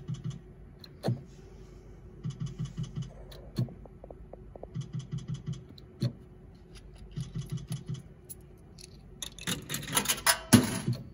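Zeus Glory video slot machine spinning in rounds about every two and a half seconds: a sharp click starts each spin, and a quick run of about five ticks follows as the reels stop. A denser, louder patch of clicking comes near the end, over a faint steady electrical hum.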